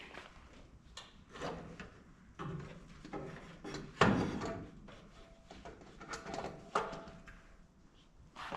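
Tools and parts being handled during work on a truck: a string of knocks and scrapes, with one sharp knock about four seconds in the loudest.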